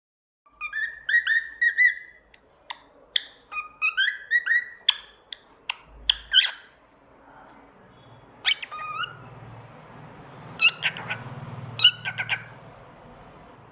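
Pet cockatiel whistling and chirping in quick, short pitched notes: a dense run of notes in the first half, then a few shorter bursts later on. A faint low hum sits underneath in the second half.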